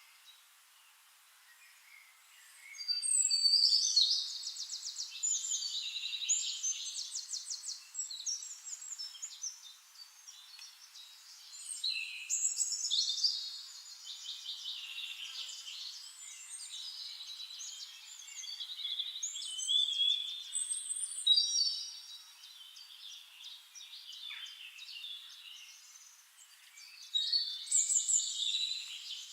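Songbirds singing: rapid high trills and chirps in phrases a few seconds long, coming every several seconds, with softer chirping between phrases.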